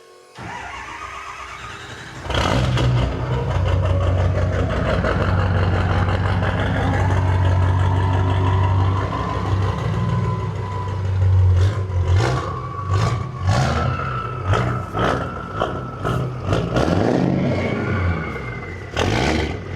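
Ford 6.0 Powerstroke V8 turbo diesel with a big S400 single turbo, cranking for about two seconds and then catching, and idling loud through a normal exhaust elbow and tip. From about twelve seconds in it is revved in a series of short blips, with turbo whine rising and falling over the engine.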